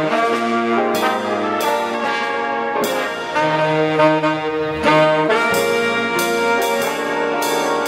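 Jazz big band playing, saxophones and trombones sounding full chords that change every second or so, with several sharp accented attacks.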